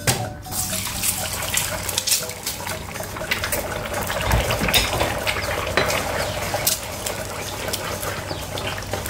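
Eggs sizzling and crackling in hot oil in a frying pan, starting with a sudden burst. Near the end, a wooden spoon breaks them up in the pan for scrambled eggs.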